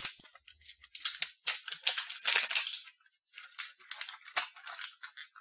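Crinkling and rustling of a plastic candy wrapper being handled and opened, in irregular crackly bursts with a short pause about three seconds in.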